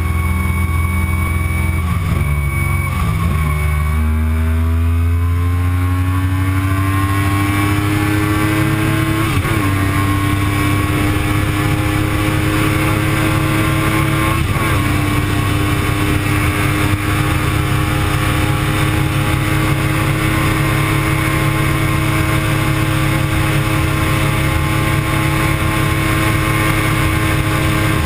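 Yamaha YZF-R1 superbike's inline-four engine at full throttle under heavy wind rush. The pitch dips about three seconds in, climbs steadily with brief breaks around 9 and 14 seconds in, then holds high and steady as the bike runs near its top speed of about 299 km/h.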